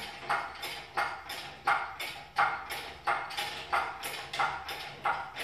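Hand-pumped hydraulic engine hoist being worked: a regular metallic clank-squeak about every 0.7 s, one per pump stroke.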